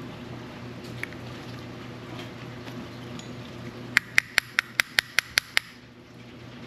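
A steady low hum with faint handling noises, then, about four seconds in, a quick run of sharp metallic clicks, about five a second, each with a short ring: a ratcheting mechanism being worked during the teardown of a spinning fishing reel.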